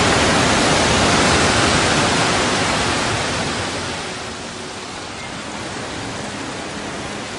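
Steady rush of falling water from the 130-metre San Rafael waterfall, dropping noticeably in level about three to four seconds in.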